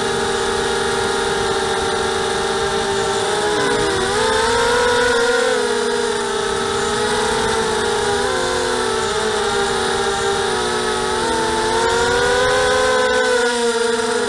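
ZMR250 racing quadcopter's brushless motors (Cobra 2204 1960 kV) spinning Gemfan 5030 props, a continuous whine whose pitch dips and climbs with the throttle, dropping sharply about four seconds in and rising again near the end, heard from the quad's onboard camera.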